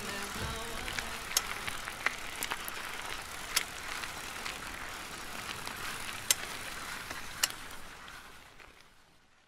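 Bicycle rolling over a rough trail: a steady hiss of tyre noise with scattered sharp clicks, fading out near the end.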